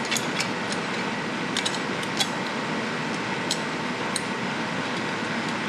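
A few small, sharp metal clicks as a screw is handled and fitted by hand into an engine bracket, over a steady rushing background noise.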